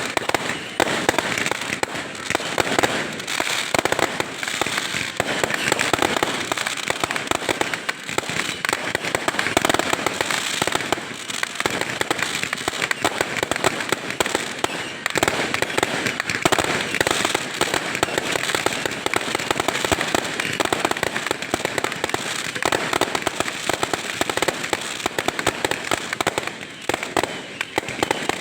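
Fireworks and firecrackers going off many at a time: a dense, unbroken crackle of small bangs with no pause.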